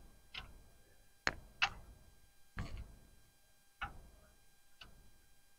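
A handful of faint, separate clicks and light clinks, about six in five seconds, from small metal engine parts being handled and fitted by hand.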